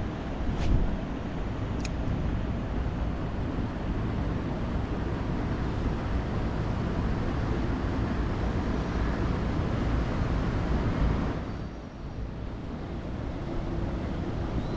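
Wind buffeting the microphone: a steady low rumbling rush that dips briefly about twelve seconds in, with two faint clicks near the start.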